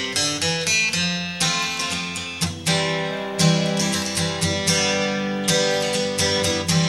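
Background music: an acoustic guitar picking and strumming notes in a steady rhythm.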